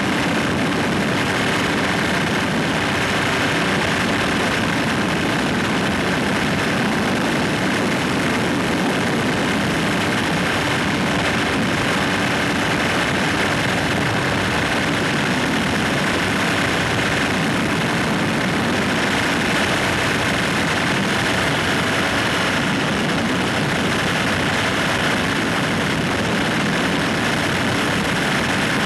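Flex-wing microlight trike's engine and propeller running steadily in cruise, mixed with wind rushing over the microphone. The sound holds at one level and pitch throughout.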